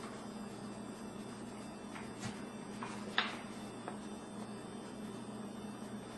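Steady low electrical hum of room noise, with a few faint short clicks or taps between about two and four seconds in.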